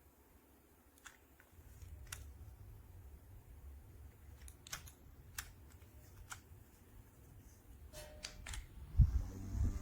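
Scattered small clicks and handling knocks, then a thump near the end as a JISULIFE handheld mini fan switches on and starts running with a steady hum and airy whir.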